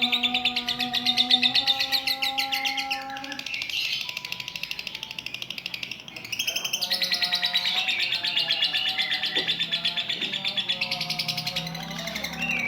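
Lovebird ngekek: a long, rapid chattering trill that thins out briefly midway and then picks up again, over background music.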